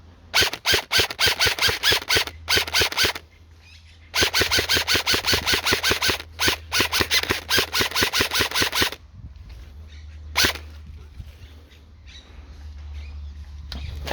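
Airsoft electric gun firing on full auto in two long bursts of rapid, even shots, a few seconds each, then a single shot about ten seconds in.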